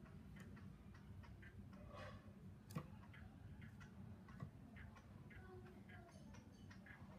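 Faint, scattered short chips and ticks from a caged Chinese hwamei, with one sharp click about three seconds in.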